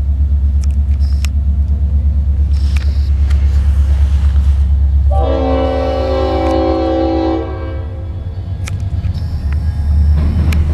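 Norfolk Southern diesel locomotive passing slowly, its engine giving a deep, pulsing rumble. About five seconds in it sounds its multi-tone air horn in one blast of about two and a half seconds.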